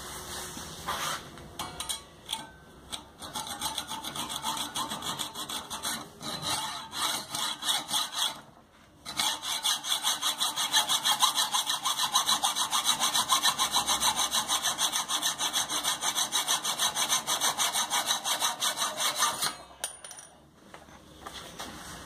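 Hacksaw cutting through a stainless steel bolt held in a bench vise. Uneven strokes at first, then a short pause, then a long steady run of quick back-and-forth strokes that stops shortly before the end.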